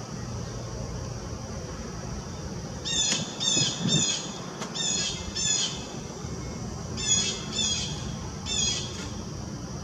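A bird giving short, pitched calls in two quick series, five calls starting about three seconds in and three more a second or so later, over a steady low background hum.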